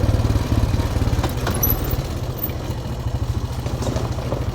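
Small off-road vehicle engine running steadily as it is driven along a bumpy trail, easing off a little about two seconds in, with some light rattling.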